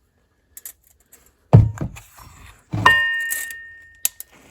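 Metal mower parts being handled: a dull thunk about a second and a half in, then a metallic clank that rings for about a second as it fades, with a few light clicks around them.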